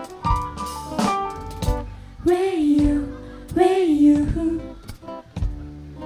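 Live acoustic pop band playing an instrumental passage between sung lines: acoustic guitar over a drum kit and bass, with a sustained melody line that slides between notes.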